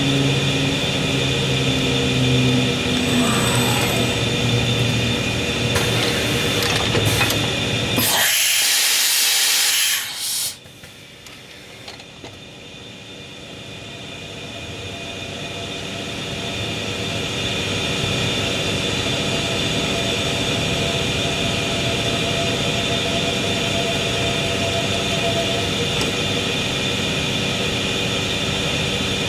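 Steady drone of the Kutrite CNC router machinery, with its vacuum hold-down on, running through an automatic tool touch-off cycle. About eight seconds in a loud hiss lasts about two seconds. Then the drone drops away suddenly and builds back up over several seconds.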